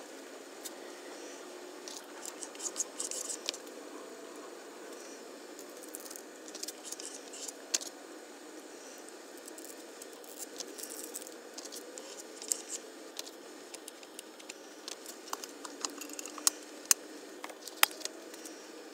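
Masking tape and decal transfer film being peeled off and handled on an outboard motor hood, making intermittent crinkles and crackles. A few sharp clicks stand out near the end, over a steady low hum.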